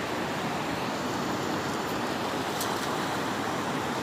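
Fast, turbulent river rapids rushing steadily, a constant roar of churning water.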